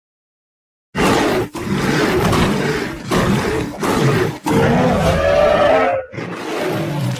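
Monster roar sound effects: after about a second of silence, a string of loud, deep, rough roars and growls follows, separated by short breaks, with a somewhat quieter one near the end.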